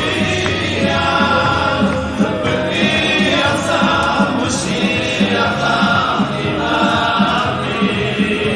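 Music with a group of voices singing together over a steady beat.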